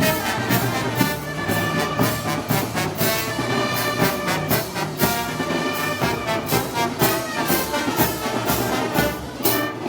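Brass band playing festival music, with sustained brass chords and percussion hits keeping a steady beat.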